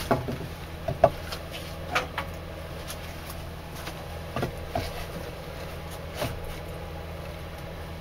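Scattered knocks and clicks from a chipboard board and an angle grinder being handled and set down on a workbench, about eight in all, over a steady low electrical hum.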